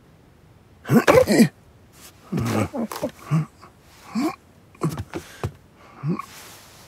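A string of short cartoon vocal noises from a man and a cat: strained grunts, gasps and whining cries, about one a second. The loudest comes about a second in, and a short breathy noise follows near the end.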